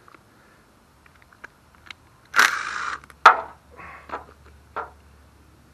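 A short hiss of aerosol carburetor cleaner spraying for about half a second, followed by a sharp click and a few light knocks and clatters of small engine parts being handled.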